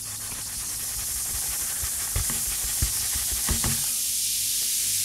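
Fizzing hiss of a Coke, vinegar, baking soda and Mentos mixture bubbling in a bowl as it gives off carbon dioxide, growing a little louder, with a few soft knocks about halfway through.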